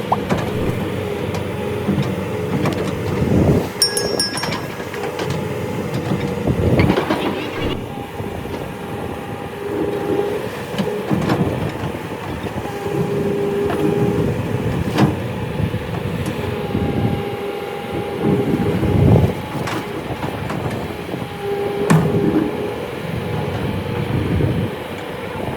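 Hydraulic excavator working: its diesel engine runs steadily while a pitched hydraulic whine comes and goes every few seconds as the digging load changes, with a few sharp knocks from the bucket and metal parts.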